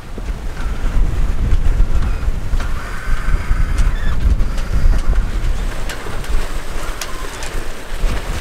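Wind buffeting the microphone over the rush of water along the hulls of a sailing catamaran under way in a fresh breeze, with a few sharp ticks in the second half.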